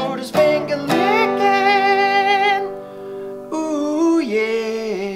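Outro music: a couple of acoustic guitar strums, then a sung melody of long held notes with vibrato, with a short break about three seconds in before the next phrase.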